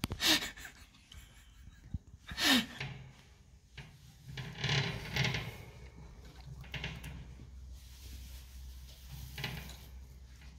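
Hamster gnawing and tugging at a hanging seed stick in its cage: bursts of crunching and rustling, with two sharper knocks in the first few seconds.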